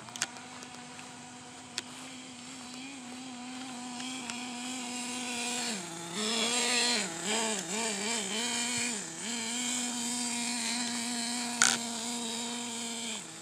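Small nitro (glow-fuel) engine of an OFNA radio-controlled truck running at a steady pitch. About halfway, the pitch dips and comes back up several times in quick succession for a few seconds, then holds steady again. A single sharp click sounds near the end.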